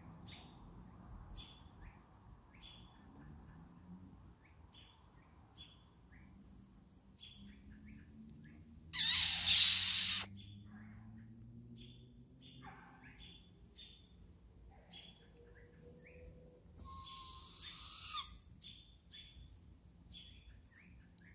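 Barred owls calling: two loud, raspy hissing screeches, each about a second and a half long, one about nine seconds in and one about seventeen seconds in, with faint short high chirps repeating throughout.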